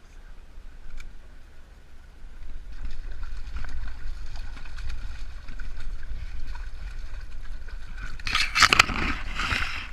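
Shallow stream running while a hooked brown trout splashes and thrashes at the surface on a tight line. About eight seconds in, much louder splashing comes as a hand plunges into the water to grab the fish.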